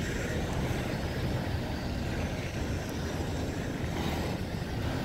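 Union Pacific double-stack freight train rolling past: a steady low rumble of steel wheels on the rails.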